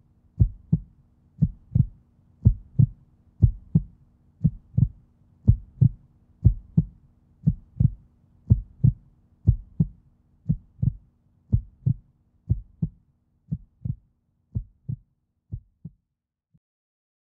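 Heartbeat-like sound effect: paired low thumps, about one pair a second, fading gradually and stopping shortly before the end.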